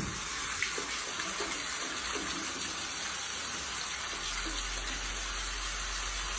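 Steady rush of running water, with a low hum joining about four seconds in.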